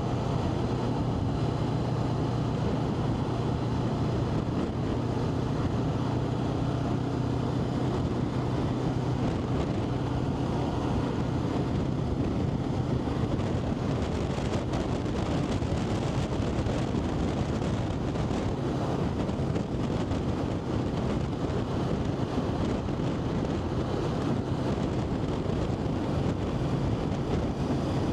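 Vehicle engine running steadily at cruising speed, with wind rushing over the microphone.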